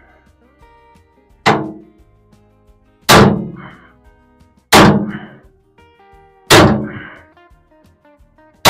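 A long-handled sledgehammer striking the steel of a bush hog rotary cutter: five loud, ringing metal clangs about every one and a half to two seconds, each followed by a short rattle. Faint background music underneath.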